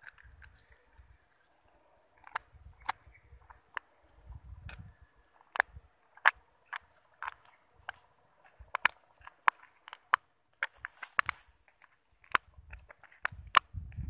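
A string of sharp, irregular clicks and snaps, roughly one or two a second and thicker toward the end, with soft low rumble from handling between them.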